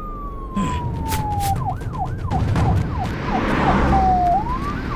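Siren sounding: a slow falling wail, then fast rising-and-falling yelps, a short held tone and a rising sweep about four seconds in, then more quick yelps, over a low rumble.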